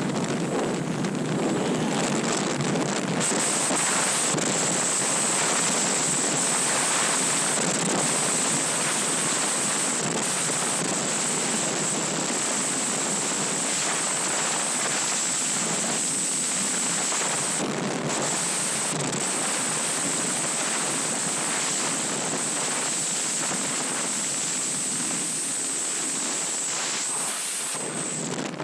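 Loud, steady rush of airflow buffeting the microphone of a jumper in flight during a BASE jump, with a thin high whistle held throughout.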